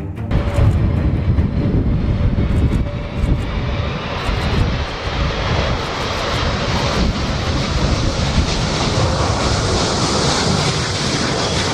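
Antonov An-124-100 Ruslan's four D-18T turbofan engines, a loud steady rumble of a large jet airliner with a faint high whine over it.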